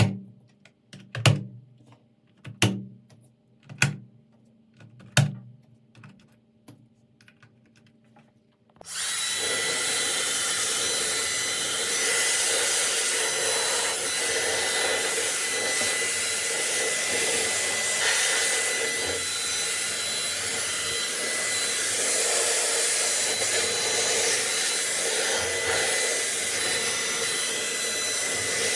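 A few sharp knocks about a second and a quarter apart, then, about nine seconds in, an electric blower switches on suddenly and runs steadily with a faint high whine, blowing dust out of a keyboard.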